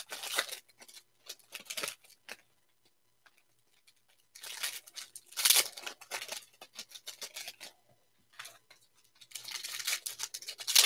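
Foil wrapper of a football trading-card pack being torn open and crinkled by hand, in three bursts with a quiet gap of about two seconds after the first.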